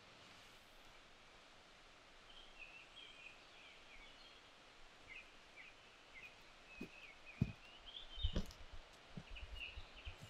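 Small birds chirping and twittering in a forest from about two seconds in. In the second half, footsteps and rustling on the dry forest floor, with a few soft thuds and then a run of steps near the end.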